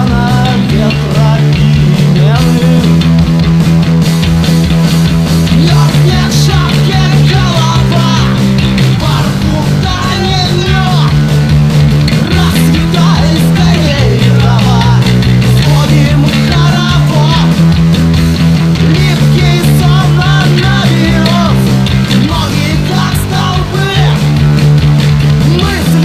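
Electric bass playing along to a punk rock recording. The bass holds low notes that change about every two seconds under the full band's guitars and drums.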